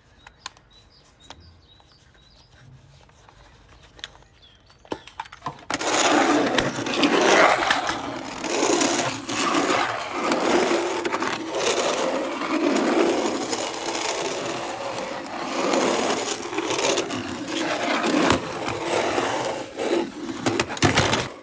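Toy train rattling fast down a wooden track: after a few faint clicks, a loud, continuous rattling rush starts suddenly about five and a half seconds in.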